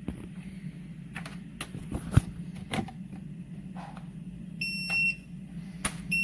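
A steady low hum with several clicks and knocks, the loudest about two seconds in. Then, near the end, an electronic beep: one high, steady tone lasting about half a second.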